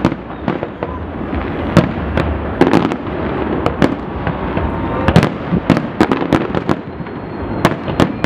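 Aerial fireworks display: shells bursting one after another, many sharp bangs at irregular, closely spaced intervals over a continuous din of smaller reports.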